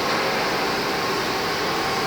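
IMEAS LCSI 190 two-head wide-belt panel sander running: a steady mechanical noise with faint constant tones.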